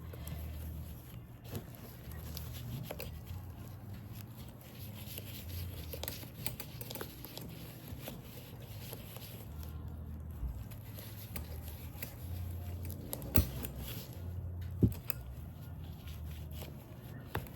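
Fingers rubbing leather conditioner over an alligator handbag's hide: faint scraping and handling noises, with two sharp clicks a little past halfway through.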